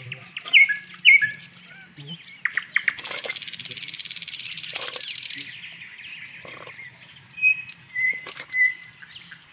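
Small songbirds chirping and whistling in short, sharp calls, with a steady high buzzing trill for a couple of seconds in the middle.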